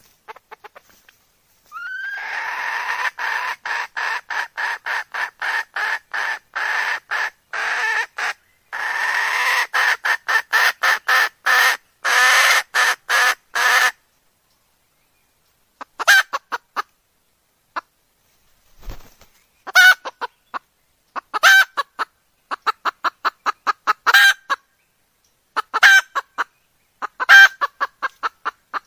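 Red junglefowl hen cackling: a long run of rapid, evenly spaced clucks for about twelve seconds, then after a short pause, shorter bursts of quick clucks every second or two. It is the call of a hen ready to mate, the kind that draws in males.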